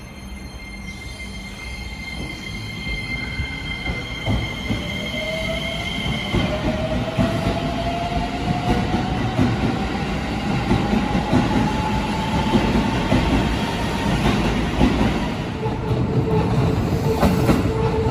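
Shin-Keisei N800-series electric train pulling out of the station, its traction inverter's whine rising steadily in pitch as it speeds up, over growing wheel-on-rail rumble. Near the end a second steady tone joins as another train comes in.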